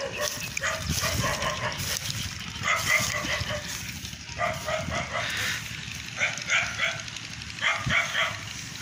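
A dog barking in quick runs of three or four short barks, several runs in a row.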